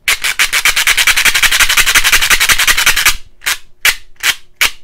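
Plastic clicking from a Mean Arms MA Loader as its thumb ring is worked by hand: a fast ratcheting run of clicks for about three seconds, then four slower, separate clicks. The repaired ring mechanism is being tested and runs the way it should.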